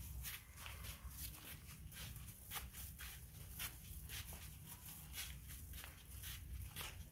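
Footsteps of a person walking in sandals on a concrete path: a steady run of soft scuffs and slaps, about two to three a second.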